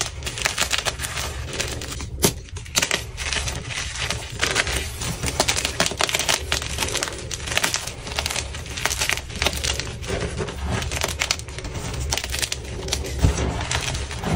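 Gym chalk, fresh white blocks mixed with orange-dyed chalk, being crushed and crumbled in the hands: a dense, irregular crunching and crackle of breaking chunks and powder. A sharper snap comes about two seconds in and another near the end.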